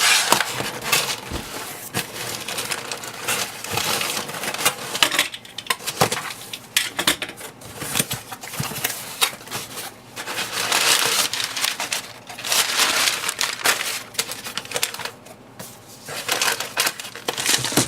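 Paper and cardboard packaging rustling and crinkling as a phone box is unpacked by hand, with scattered light clicks and knocks.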